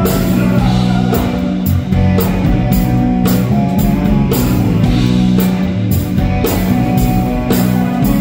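Live rock band playing: guitar and drum kit with a steady beat.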